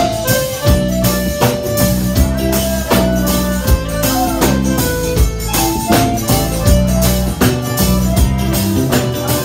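Live forró pé-de-serra band playing an instrumental break with a steady, bouncing beat. The accordion carries the melody over the zabumba bass drum, drum kit and guitars.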